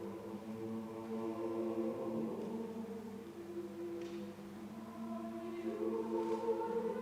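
Choir singing slow, sustained chords of several voices, with soft hissing consonants now and then, swelling louder in the last second or two.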